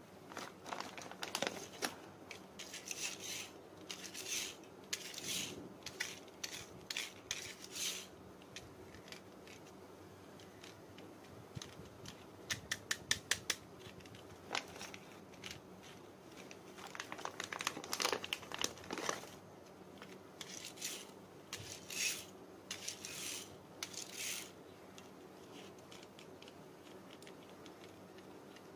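Clear plastic bag crinkling and rustling in irregular bursts as small plastic toy cars are pulled out of it, with a quick run of small sharp clicks partway through.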